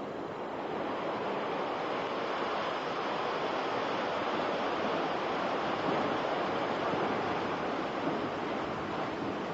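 Broken limestone rubble sliding and tumbling down a quarry face just after a blast, heard as a steady rushing noise.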